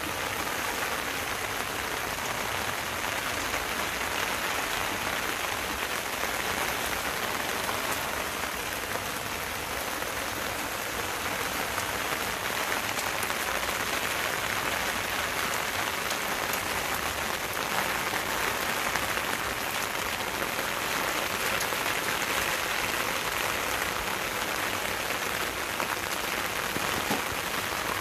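Steady rain falling on garden leaves, grass and soil: an even hiss of many droplets with scattered sharper drips.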